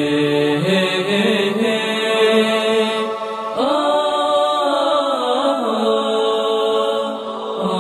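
A man's voice chanting Islamic devotional verse in long held notes that bend and wind through ornamented turns.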